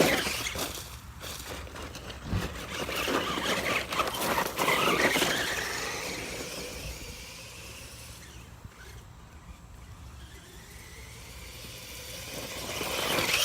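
Electric motor and drivetrain of a Helion Rock Rider radio-controlled truck whining as it is throttled up in bursts to take a climb at speed. It is loudest near the start, around five seconds in and again near the end, and quieter in between.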